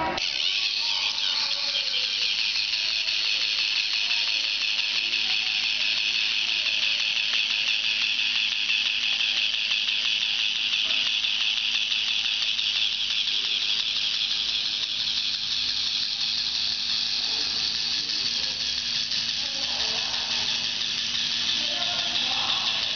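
K'nex Ace Microbot's small battery-box motor and plastic gears running as the toy crawler walks, a steady high-pitched whirring rattle. It starts right at the beginning, when the motor is switched on, and holds even throughout.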